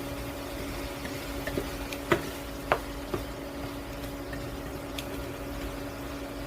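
Steady low electrical hum in a kitchen during cooking, with a few light clinks of utensils against cookware, the sharpest about two and a half seconds in.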